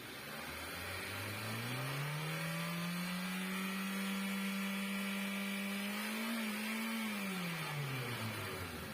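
Hyundai Santro Xing's four-cylinder petrol engine revved up smoothly over a few seconds, held steady, then let back down toward idle near the end. The engine is being checked for a misfire after its camshaft position sensor was replaced.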